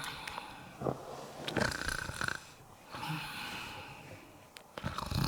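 Comic snoring for a puppet: several snores in and out, one of them carrying a thin whistle about two seconds in.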